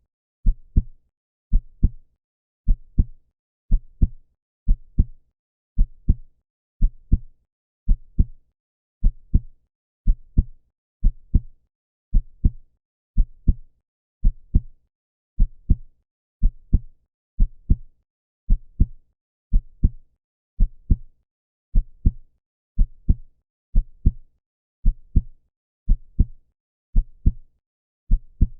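Human heartbeat: a steady lub-dub, each beat a pair of low thumps close together, repeating evenly a little faster than once a second.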